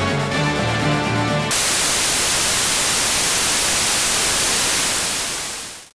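Music that cuts off abruptly about a second and a half in, giving way to a loud, steady hiss of video static, like a signal cutting out. The static fades out quickly near the end.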